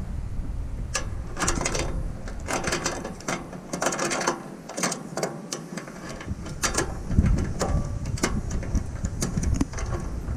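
Ratcheting box-end wrench clicking in short, irregular runs as it tightens a nut on a bolt.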